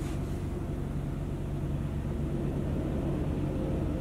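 Haval Dargo SUV running at low speed with a steady low engine hum as it steers itself into a parking space under its automatic parking system.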